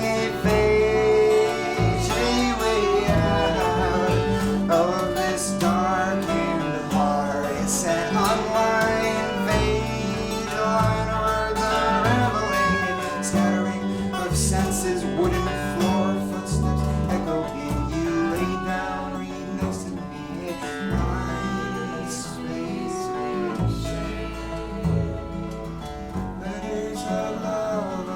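Live acoustic band music: guitar with a bowed viola and bass, playing a passage with no words sung.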